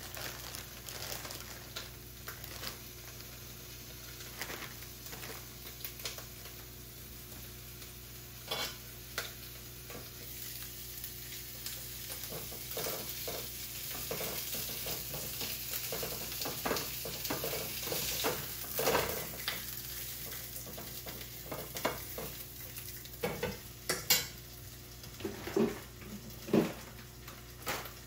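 Food sizzling in olive oil in a frying pan, with scattered clicks and scrapes of a utensil stirring and turning it, a few louder near the end.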